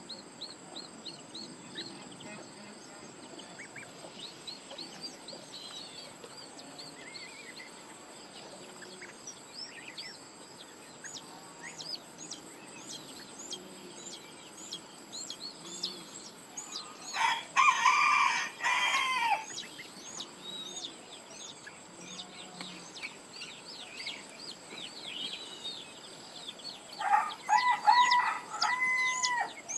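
A rooster crows twice, once about halfway through and again near the end; each crow is long and drawn out. Small birds chirp steadily in the background.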